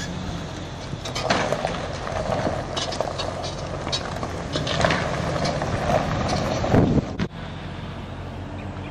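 A vehicle engine runs steadily under outdoor noise, with scattered sharp knocks and clatter. A loud low thump comes just before seven seconds, and then the sound drops and changes character.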